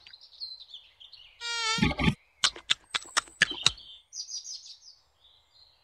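Pond ambience of bird chirps and insect-like buzzing. About a second and a half in comes a warbling call, followed by a quick run of sharp clicks and short chirps.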